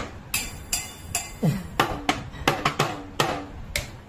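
Cheap, lightweight plastic toy drum set played with sticks: a quick, uneven run of strikes, about three or four a second, on its small drums. Each drum hit has a short ring that bends down in pitch. Several bright cymbal hits come in the first second.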